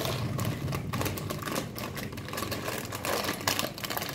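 Plastic instant-noodle packet crinkling and crackling as it is handled, a dense run of fine irregular crackles.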